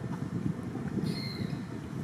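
Steady low rumble of wind noise on the microphone, with one short, high, whistled call that falls slightly in pitch about a second in.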